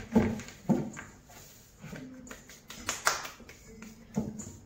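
Bread dough being kneaded by hand in a stainless steel bowl, with irregular thumps and knocks as the dough is pressed down and the bowl moves, and rustling of a paper flour packet.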